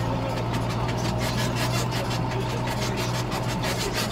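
John Deere tractor engine running steadily, heard from inside the cab as a low, even hum, with a fast, uneven rattling over it.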